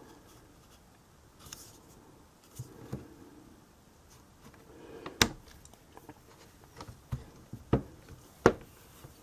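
Soft handling noise and a few sharp clicks and taps as a Stamparatus stamping platform is adjusted, the loudest clicks about five, seven and a half and eight and a half seconds in.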